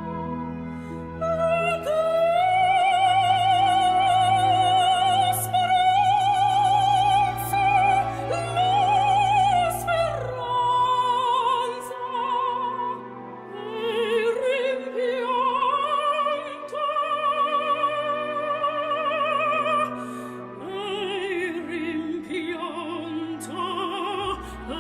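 Operatic singing used as background music: a high voice holds long notes with strong vibrato over low sustained accompaniment.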